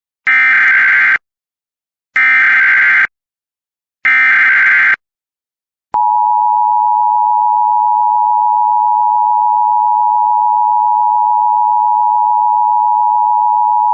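Emergency Alert System (EAS) SAME header: three short bursts of warbling digital data tones, about a second each and two seconds apart, followed by the EAS attention signal, a steady dual tone of 853 and 960 Hz held for about eight seconds.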